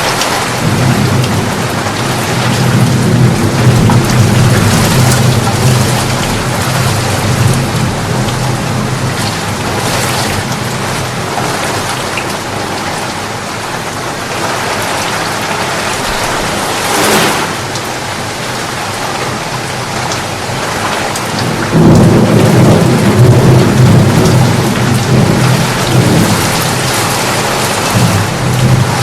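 Steady heavy rain with thunder rumbling, a long low rumble starting about a second in and another from about three quarters of the way through, with a short sharp crack a little past halfway.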